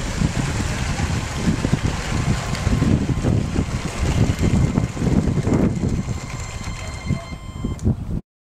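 Wind buffeting the microphone in a low, uneven rumble, over the running of battery-powered LEGO trains on plastic track, with a faint thin motor whine rising as a train nears near the end. The sound cuts off suddenly shortly before the end.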